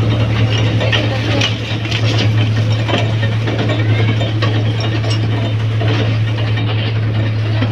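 A toy train running, with a steady low engine drone and a constant clatter of rattles and clicks from the moving carriages.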